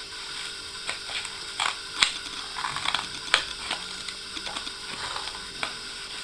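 Children's scissors snipping through brown coloured paper: a run of irregular, crisp snips with paper rustling between them, the loudest about two seconds in.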